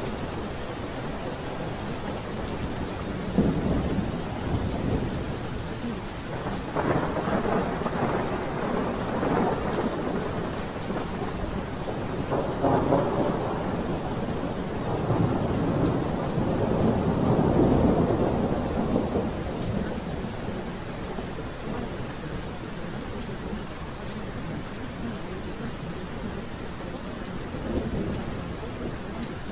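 Steady rain with rolling thunder. The rumbles swell and fade several times; the longest and loudest comes about two-thirds of the way through.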